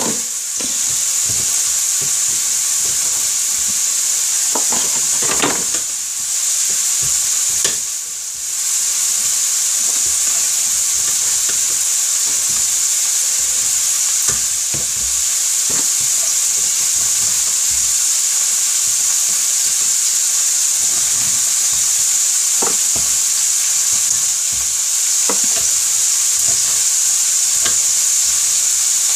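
Food frying in a pan, a steady high sizzle, with a few faint knife taps on a wooden cutting board in the second half.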